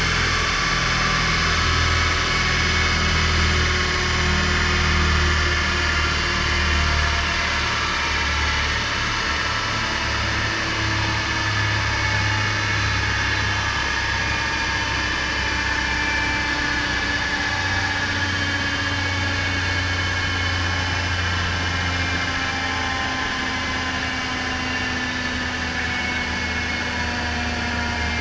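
Car engine idling on a rolling-road dyno over a steady rushing noise, with a faint whine that falls slowly in pitch as the rollers and wheels coast down.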